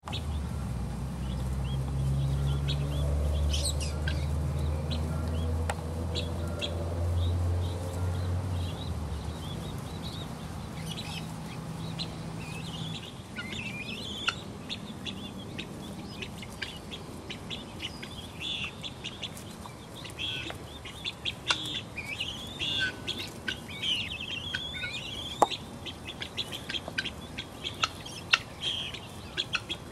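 Small chicks in a pen with helmeted guineafowl peeping: many quick, high chirps that grow thickest in the second half. A steady low hum is loudest in the first third and fades out about 9 to 13 seconds in.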